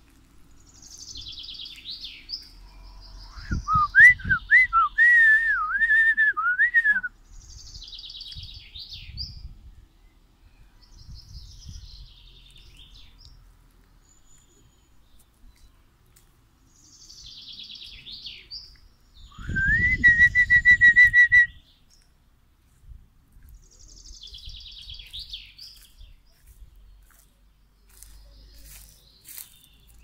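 A songbird sings a short, high, descending phrase again and again, every few seconds. Twice a person whistles much louder: a warbling run of notes about four seconds in, and a single rising note held for about two seconds near the middle.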